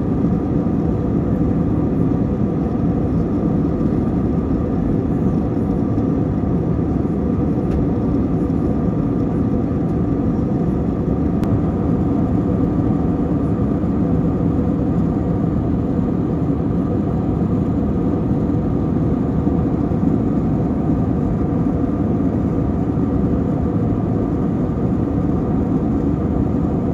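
Airbus A321 cabin noise in flight: a steady rush of engine and airflow noise with a faint even hum, unchanging throughout.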